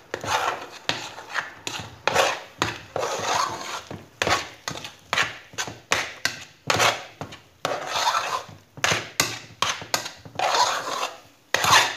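A spoon scraping and knocking against an aluminium saucepan while stirring thick choux dough of flour, water and butter as it cooks on the stove. The strokes come about twice a second, with occasional sharper knocks.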